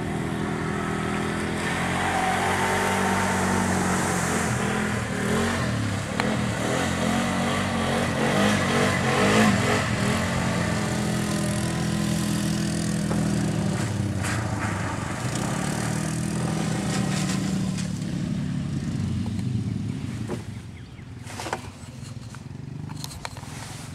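ATV engine running under load, its pitch rising and falling as the throttle is worked, then easing off and quieter near the end.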